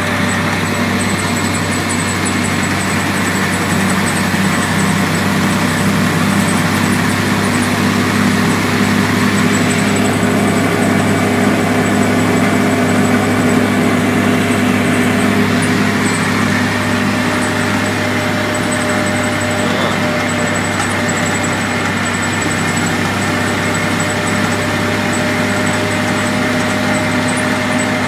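Dodge WC-54's flathead straight-six engine running steadily at cruising speed, heard from inside the cab with tyre and road noise.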